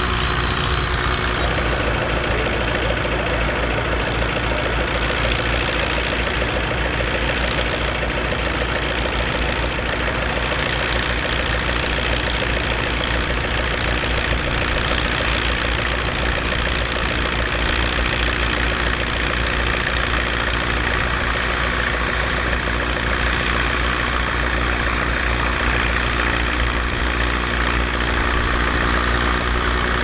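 Fiat 615 DT tractor's diesel engine running steadily under load while pulling a three-furrow plough.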